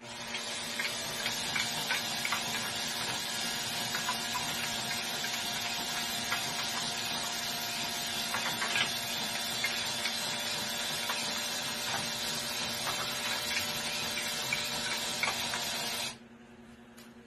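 Drill motor running steadily, driving a wooden stepped-slat marble lift, with light clicking of the wooden slats and steel marbles. It stops abruptly near the end.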